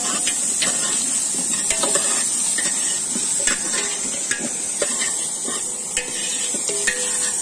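Long-handled metal ladle stirring chicken curry in a large metal cooking pot: irregular clanks and scrapes against the pot's rim and sides, some ringing briefly, over a steady hiss.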